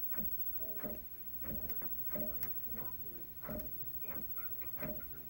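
Printer mechanism running with an even ticking, a short click about every two-thirds of a second.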